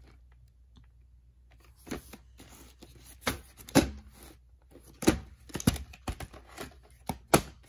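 Hard plastic VHS clamshell case being handled, turned over and opened: a series of sharp plastic clicks and knocks over a faint rustle.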